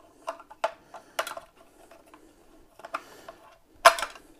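A circuit board with plastic connectors being worked out of a Lowrance StructureScan HD module's plastic case by hand: a series of sharp plastic clicks and knocks with handling rustle between them, the loudest a snap a little before the end.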